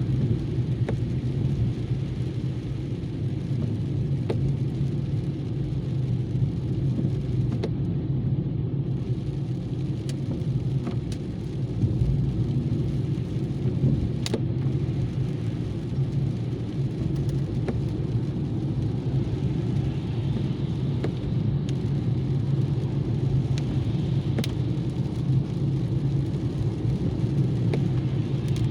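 Steady low rumble of a car driving, engine and road noise, with a few faint ticks now and then.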